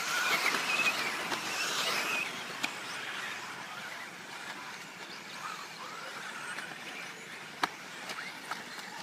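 1/10-scale four-wheel-drive electric off-road racing buggies running on a dirt track: a high whine of electric motors and drivetrains with tyre noise. It is loudest in the first couple of seconds as cars pass close, and there are a few sharp clicks, the clearest near the end.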